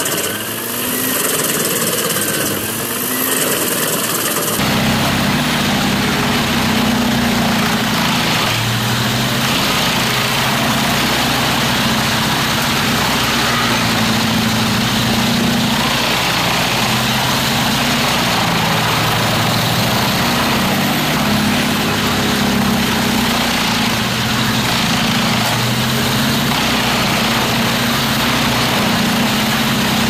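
Wood chippers at work: a tractor-towed chipper chipping logs, then from about four seconds in the steady engine hum of a large truck-mounted wood chipper running under load, its pitch wavering slightly as a crane feeds it logs.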